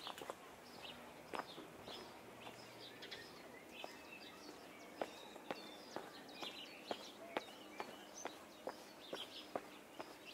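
Footsteps at a steady walking pace, about two a second, with small birds chirping.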